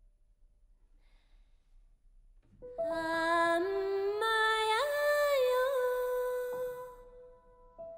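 Woman's voice singing an Amami lullaby slowly in long held notes that step upward and slide, starting about two and a half seconds in and fading out near seven seconds. A faint held tone lingers after the voice stops.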